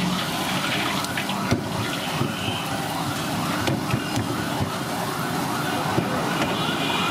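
Hot oil sizzling steadily as a large piece of dough deep-fries in a big iron kadai, with a few sharp clicks. A siren yelps rapidly through it, about two to three rising-and-falling wails a second.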